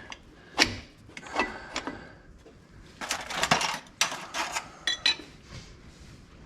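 Metal drum-brake hardware clinking and tapping as a brake shoe hold-down pin is worked through the shoe: scattered light clicks, a few quick clusters and one short metallic ring just before the five-second mark.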